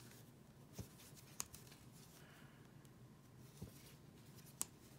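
Near silence, with three faint clicks of wooden knitting needles as stitches are knitted.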